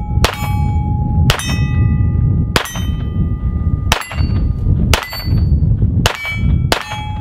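Taurus TX22 .22 LR pistol fired without its suppressor: about seven sharp shots roughly a second apart. Most are followed by the clear ring of a steel target being hit.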